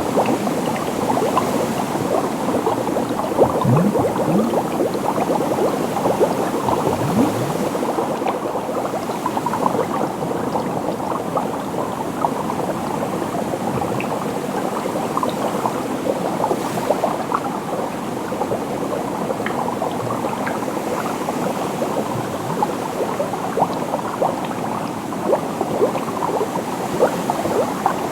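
Liquid bubbling steadily, with a dense, continuous stream of small bubbles popping and gurgling. A few bubbles give short rising blips.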